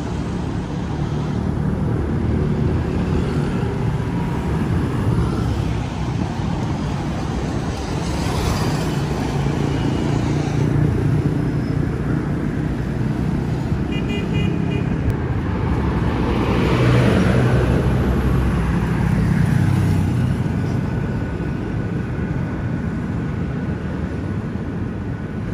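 Street traffic with car engines running in a steady low rumble; two cars pass close by, swelling and fading, about a third of the way in and again past the middle. A brief high beeping sounds about halfway through.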